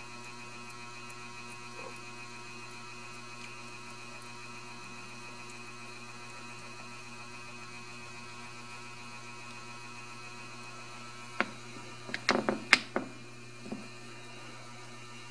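Steady electrical mains hum with many overtones. Near the end, a brief cluster of sharp clicks and knocks.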